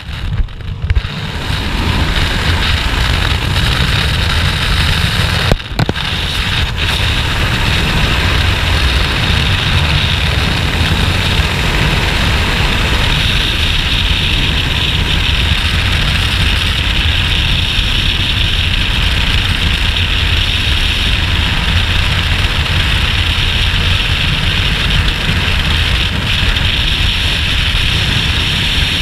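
Steady rush of freefall wind over a helmet camera's microphone as skydivers fall in formation, cutting out for an instant about six seconds in.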